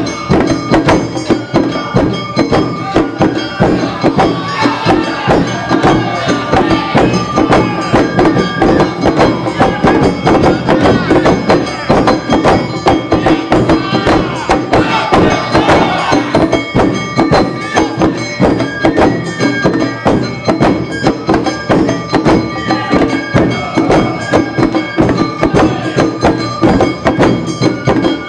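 Awa Odori dance band music: drums and the clanging kane gong beating a fast, steady rhythm under shamisen and bamboo flute. Voices call out over it in the middle.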